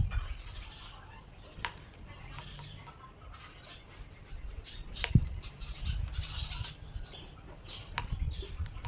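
A small bird fluttering its wings in short bursts as it fights its reflection in a motorcycle mirror, with three sharp taps of the bird striking the mirror; the one about five seconds in is the loudest.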